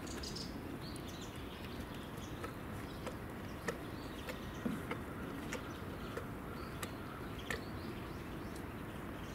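Small horse eating feed from a plastic bucket: irregular sharp crunching clicks of chewing over a steady outdoor background, with faint bird chirps in the first second.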